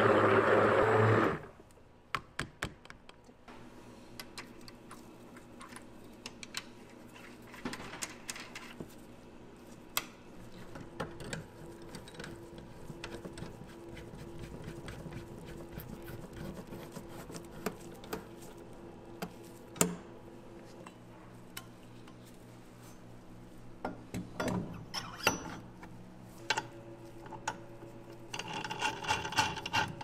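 Stick blender whirring in a jug of gelato base, stopping about a second in. After it comes a low steady machine hum, broken by scattered clicks and metal clinks as stainless steel machine parts are turned and fitted by hand.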